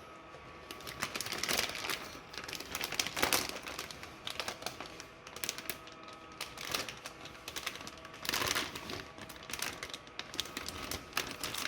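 Crinkling, rustling and small clicks of plastic bags and cardboard packaging being handled while unpacking a motherboard box, with louder bursts of rustling a few times.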